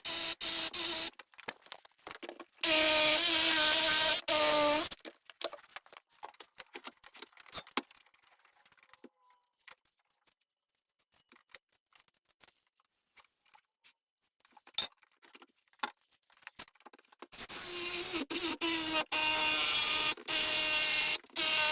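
A handheld power tool running in bursts of a few seconds at a steady pitch, cutting through old elevator rubber mat. Between the bursts there is a quiet stretch of scattered light clicks and knocks.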